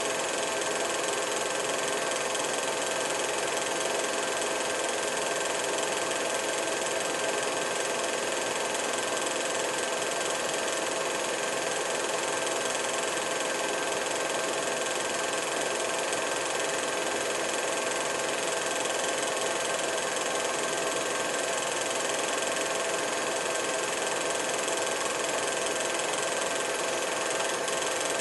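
Steady machine hum with hiss and a few held tones, unchanging throughout, with no separate events.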